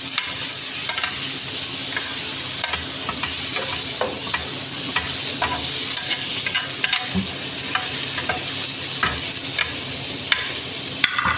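Grilled boneless chicken pieces sizzling in an oiled frying pan, a steady hiss, with scattered light clicks and scrapes of a utensil moving the pieces against the pan. The chicken is fully grilled.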